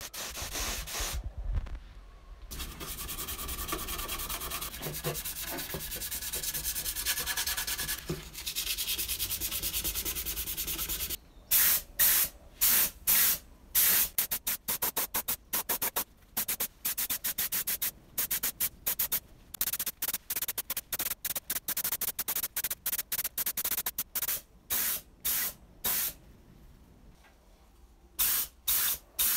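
Gravity-feed paint spray gun hissing as it sprays. It runs for several seconds, then sprays in many short bursts, the trigger pulled on and off several times a second.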